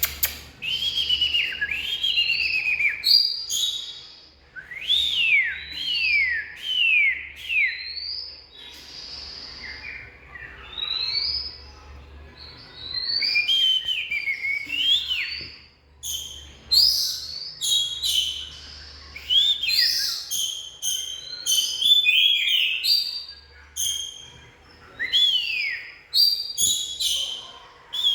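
Oriental magpie-robin singing: phrases of clear whistled notes, many sliding steeply downward, mixed with short sharp notes and broken by brief pauses.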